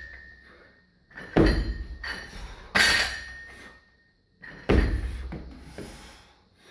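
Loaded steel barbell and its metal plates clanking in three loud, sharp impacts about a second and a half apart, each with a short metallic ring, as the bar is handled and cleaned to the shoulders; a fainter knock comes near the end.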